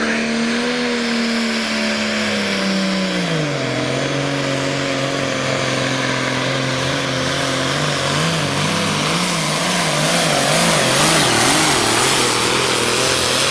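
Case 1070 hot stock pulling tractor's diesel engine running hard while pulling a sled. Its pitch drops sharply about three and a half seconds in, then holds lower. From about eight to eleven seconds the engine speed wavers up and down.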